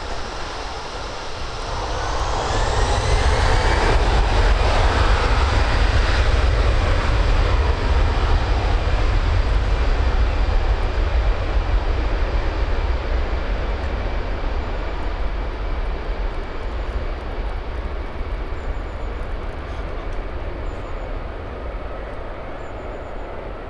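Airbus A320-200 jet engines running at taxi power: the thrust comes up about two seconds in with a climbing whine, then settles into a steady rumble and whine that slowly grows fainter.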